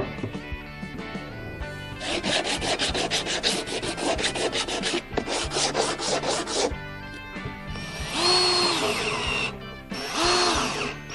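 Handsaw cutting a wooden board with rapid, even strokes, about four a second. It is followed by two short runs of a power tool whose whine rises and falls. Quiet background music plays underneath.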